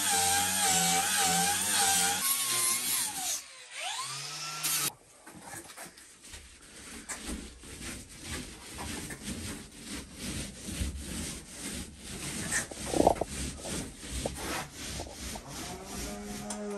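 A handheld angle grinder running, then spinning down with a falling whine about three seconds in. From about five seconds, a hand tool rubs across OSB board in quick, rhythmic back-and-forth strokes.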